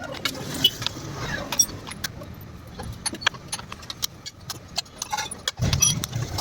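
Irregular metallic clinks and taps of tools on metal parts, many short sharp clicks in quick succession.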